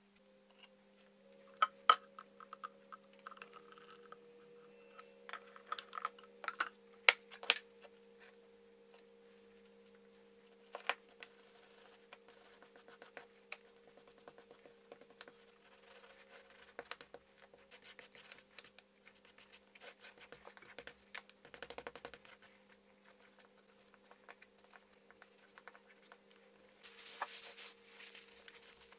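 Hands working at a leather strap on a cutting mat: scattered sharp clicks and taps of things being picked up and set down, with scratchy handling, then a stretch of rubbing near the end as finish is worked into the leather. A steady electrical hum runs underneath.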